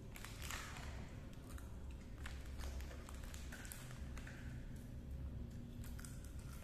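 Quiet eating sounds: scattered light taps and clicks of fingers and food against a plate, with chewing, over a low steady hum.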